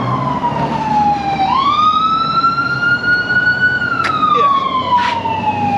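Ambulance siren wailing: a slow falling tone that swings back up about a second and a half in, climbs gently, then falls again from about four seconds in. A couple of faint clicks sound near the end.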